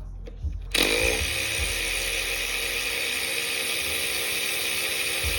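Small power tool motor spinning up about a second in, then whirring steadily.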